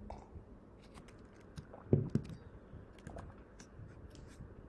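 Computer keyboard keys clicking in scattered light taps, with one louder low thump about two seconds in.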